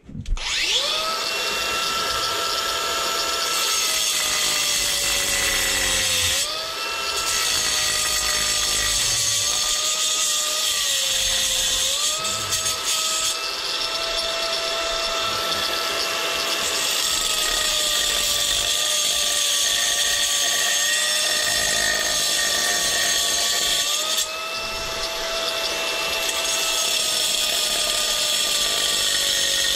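Cordless Ridgid angle grinder with a diamond blade cutting a notch in a thin veneer stacked-stone panel. It spins up at the start, then runs with a steady high whine over a harsh grinding hiss. Its pitch sags and recovers several times as the blade bites into the stone.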